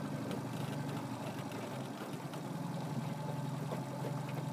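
Boat motor running steadily with an even, low hum.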